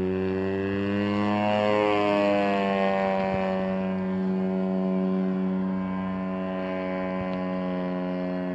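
Engine and propeller of a large Pitts S1 model biplane in flight, a steady droning note. About two seconds in it swells and wavers in pitch as the plane manoeuvres, then holds steady and fades slightly near the end.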